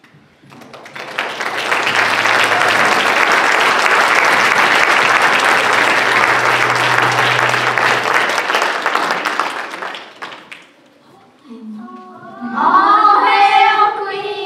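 Audience applauding, starting about half a second in and dying away after about ten seconds. Near the end, children's voices begin singing.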